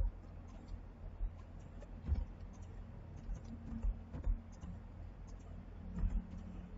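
Faint computer mouse clicks and keystrokes, a few scattered clicks over a low steady hum.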